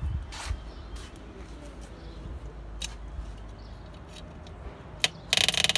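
Low handling noise and a few scattered clicks, then near the end a newly wired-in electric fuel pump starts up, ticking rapidly and loudly.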